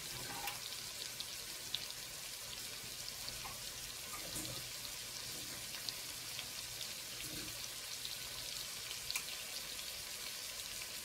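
Blackened steaks frying in butter in a pan: a steady sizzle scattered with small pops and crackles.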